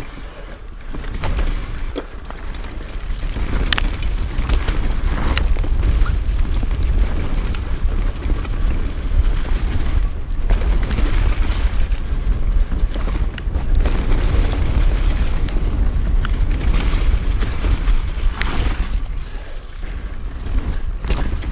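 Mountain bike rolling fast down a dirt forest trail: tyre and trail noise with scattered sharp knocks and rattles, over a heavy rumble of wind on the camera microphone. No freewheel ticking is heard, because the rear hub is a Kappstein Silent Freewheel Hub with a roller clutch, which runs silently.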